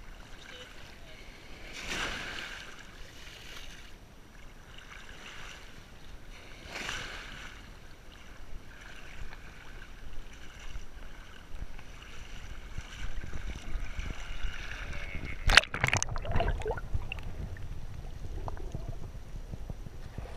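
Small waves lapping and washing around the camera in shallow seawater, swelling up about two seconds and seven seconds in. About fifteen seconds in come a couple of sharp knocks, then heavier, deeper sloshing.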